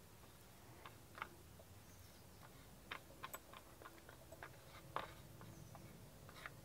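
Near silence, broken by scattered faint plastic clicks and taps as a Tupperware herb chopper is opened and handled.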